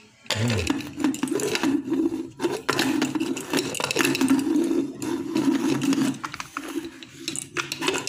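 Tap water running into a metal cooking pot, with clinks and clatter from a pressure-cooker lid being handled.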